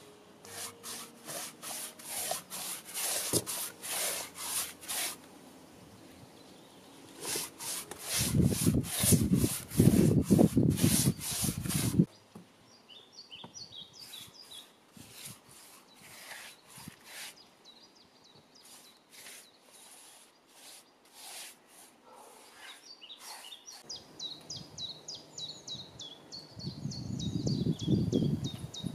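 A wide brush rubbing back and forth over wooden deck boards, spreading a dark finish in a quick series of swishing strokes. The strokes are heaviest in the first half, drop away abruptly, and build up again near the end. Small birds chirp in the background in the middle and toward the end.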